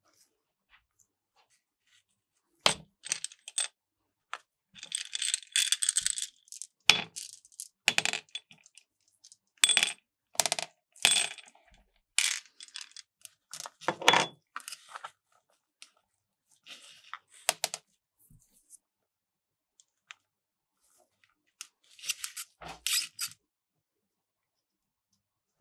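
Metal spatulas scraping and clinking on a steel ice cream roll plate, in a run of short strokes and scrapes with pauses between, the metal ringing faintly.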